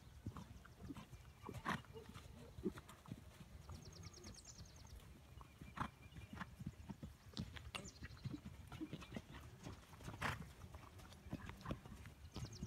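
Faint hoofbeats of a horse running on arena sand, heard as scattered uneven thuds and clicks over a low rumble, with a brief high rapid ticking about four seconds in.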